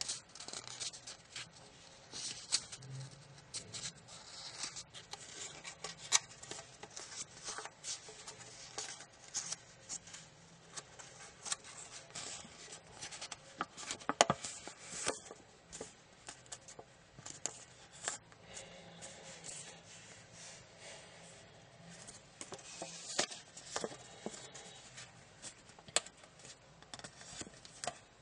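Sheet of origami paper rustling and crackling as fingers fold it and rub down creases, in irregular small crackles with a few sharper snaps now and then.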